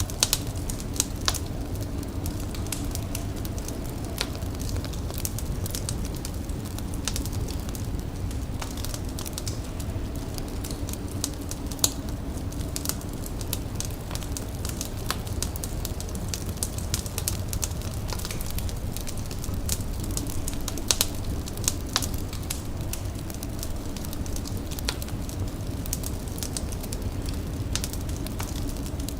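Fire crackling with frequent irregular sharp pops and snaps over a steady low rumble.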